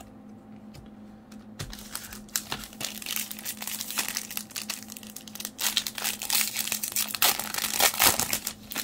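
Glossy plastic wrapper of a 2022 Topps Series 1 baseball card pack crinkling and tearing as it is pulled open by hand. The crackling starts about a second and a half in and is loudest near the end.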